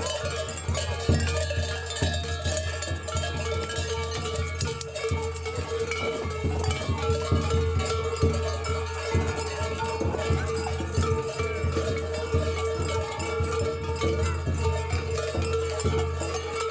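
Many cowbells and smaller bells clanking and jangling without pause, shaken by a troupe of costumed dancers, over a steady held low tone.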